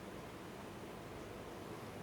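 Faint, steady background hiss of a quiet room, with no distinct sound.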